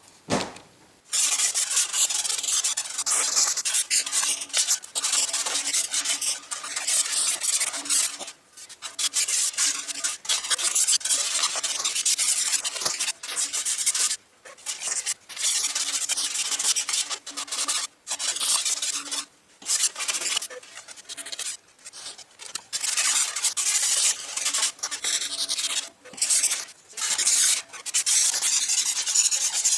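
Abrasive sanding on a rim turning in a polishing jig: a loud, hissing rub in repeated passes that stop and start every second or two, with a faint low motor hum in places.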